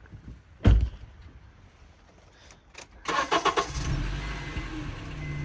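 A loud thump, then a 2010 Honda CR-V's engine cranking briefly and catching about three seconds in, settling into a steady idle.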